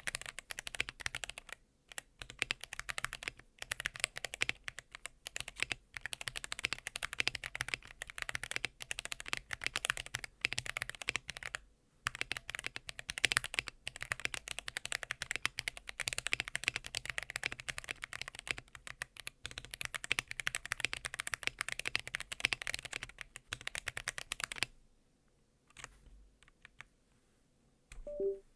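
Typing on a KBD67 Lite mechanical keyboard with Holy Panda tactile switches, lightly lubed with 205g0, on a polycarbonate plate. The key presses come fast and steady, then stop about three seconds before the end, leaving a couple of small, faint sounds.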